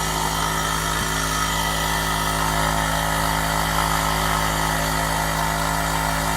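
Air compressor pump running steadily, a constant hum with a fast, regular pulsing. It is pumping air, but the tank is not filling.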